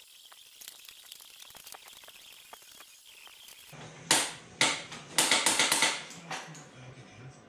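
Workshop tool noise from work on an ATV: faint scattered ticks, then about four seconds in a low hum starts and a run of loud, sharp clattering bursts follows for a couple of seconds.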